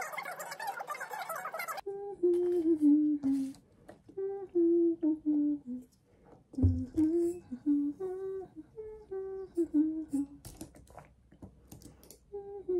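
A woman humming a tune in short, mostly falling phrases. It follows a dense, busy sound that cuts off abruptly about two seconds in, and a dull thump comes about halfway through.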